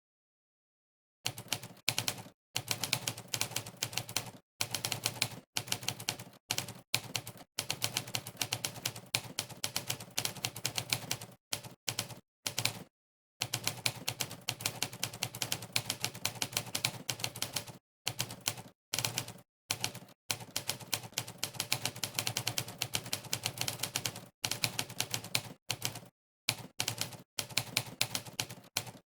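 Simulated typewriter key-strike sound effects, one for each keystroke of fast typing, coming in rapid runs of clicks broken by short pauses. There is dead silence for about the first second.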